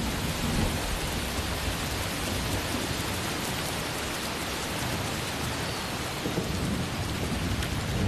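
Heavy downpour of rain: a steady, even hiss with a low rumble underneath.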